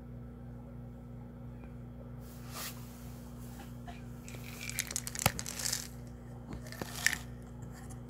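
Crinkling and rustling with a few sharp clicks, over a steady low hum.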